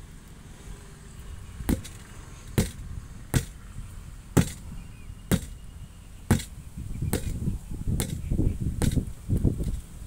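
Hammer blows on a tractor front tyre fitted to its steel rim: about nine sharp strikes, roughly one a second, with some low scuffing and shuffling in the later seconds.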